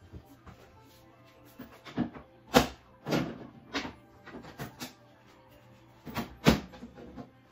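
Sharp knocks and clatter of household things being picked up and set down, in two clusters, the loudest about two and a half and six and a half seconds in, over faint background music.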